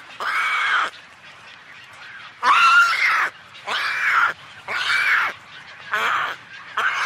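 A pelican calling: a series of short calls, each arching up and then down in pitch. One call comes at the start, then after a pause of about a second and a half several more follow at roughly one a second.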